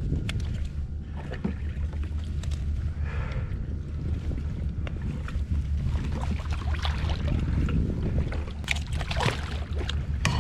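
Wind buffeting the microphone as a steady low rumble, with water splashing now and then as a yellowtail thrashes at the side of a kayak.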